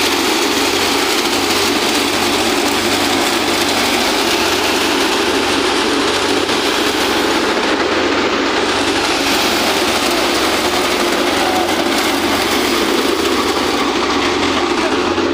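Wheat thresher running steadily under load, a loud, even mechanical rushing noise from its drum and fan.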